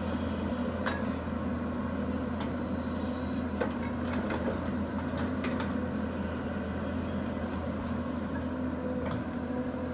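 Excavator's diesel engine running steadily, with a few faint clicks or knocks.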